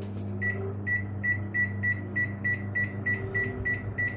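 Microwave oven control panel beeping: a rapid run of short, high beeps, about three a second, as the cooking time is stepped up to 8 minutes. A steady low hum runs underneath.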